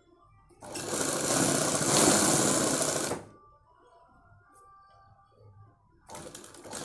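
Straight-stitch sewing machine running for about two and a half seconds as it stitches a seam, then stopping. It starts again briefly near the end with a short run of stitches.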